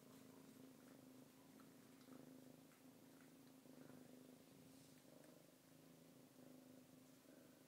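Kitten purring steadily and quietly, set off by being stroked.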